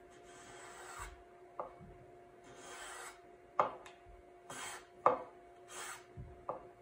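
Small brass hand plane cutting short strokes along the edge of a walnut seat, faceting the bevel: a few brief scraping cuts, with sharp clicks as the plane is set down or lifted.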